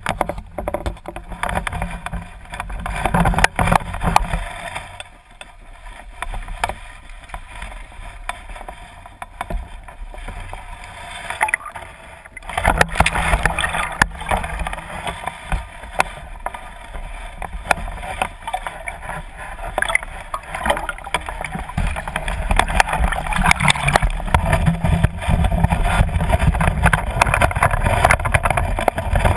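Muffled water sloshing and splashing against an action camera at the river's surface, with frequent knocks and bumps from handling. Quieter from about five seconds in, then louder and busier from about twelve seconds on.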